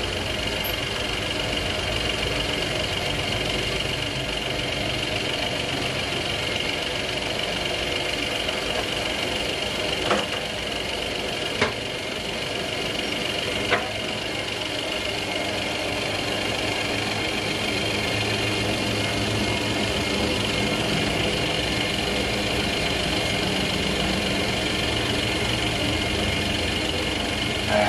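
Belt-driven lathe running steadily with a truck clutch flywheel mounted on it, a constant high whine over a mechanical hum. Three sharp clicks come about ten, eleven and a half and fourteen seconds in.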